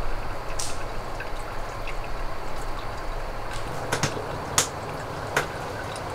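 Evening outdoor ambience: a steady rushing hiss with three sharp drip-like ticks in the second half.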